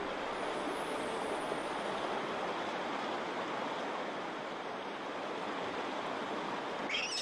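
Steady rushing of a stream's flowing water, an even noise without breaks.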